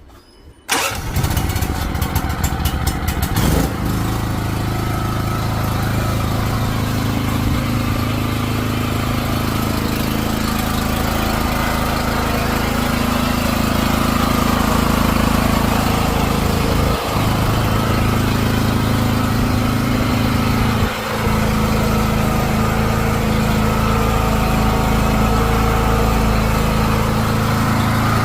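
Alpha 3 kVA silent petrol generator's engine starting up abruptly about a second in, settling after a few seconds and then running steadily, with two brief dips in level later on.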